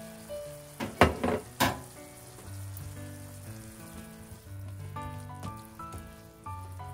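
Bamboo shoots sizzling as they are stir-fried in oil and soy sauce in a nonstick frying pan. A plastic spatula scrapes and tosses them a few times about a second in, the loudest moments.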